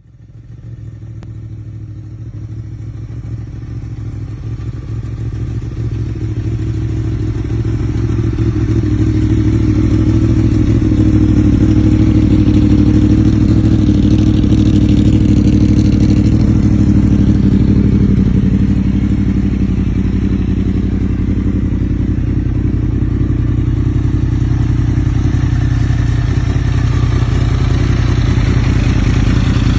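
Yamaha YZF-R1 (RN22) crossplane inline-four engine idling steadily through an aftermarket exhaust, growing louder over the first ten seconds or so.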